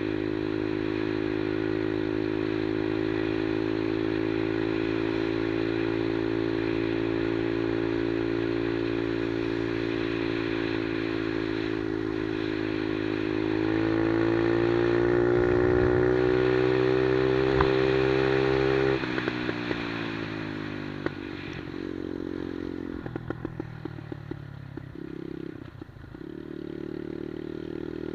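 110cc single-cylinder four-stroke engine of a Monkey-style mini bike running steadily under way, then revving up about halfway through and holding higher revs. About two-thirds of the way in the throttle is closed and the revs drop, rising and falling lower after that.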